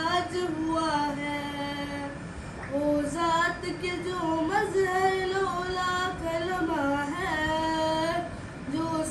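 A boy singing a naat solo with no instruments, drawing out long held notes that bend through melodic turns, with a short break for breath a little after two seconds in.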